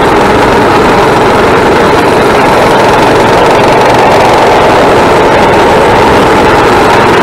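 Coleman mini bike's small single-cylinder engine running steadily while riding, a loud drone that holds a nearly constant pitch.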